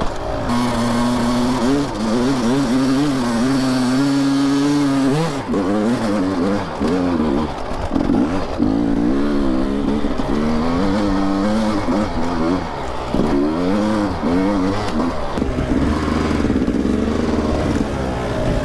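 Dirt bike engines revving hard on steep off-road climbs, the pitch rising and falling again and again with the throttle.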